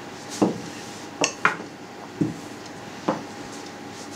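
Kitchen items handled and set down on a table: about five separate short knocks and clicks, spaced irregularly.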